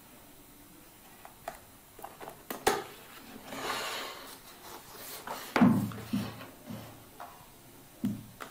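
Cardboard product box handled on a wooden tabletop: a few light taps, a short scraping slide of cardboard over wood, then several dull knocks of the box against the table, the loudest a little past halfway and another near the end.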